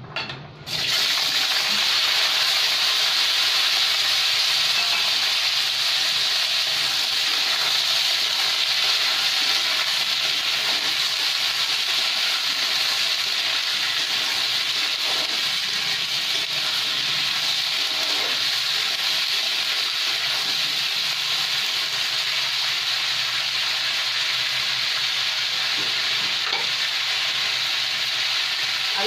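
Diced potatoes, green peas and white radish hitting hot oil and cumin seeds in a wok: a loud, steady sizzle of frying that starts suddenly about a second in, as the vegetables are stirred with a steel spatula.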